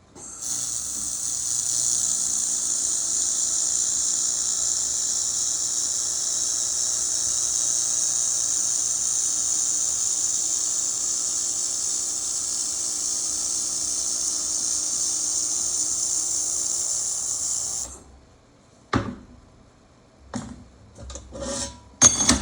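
Relilaser R900 handheld laser welder welding thin carbon steel: a steady high hiss that runs for about seventeen seconds and then cuts off suddenly. A few short clicks and knocks follow near the end.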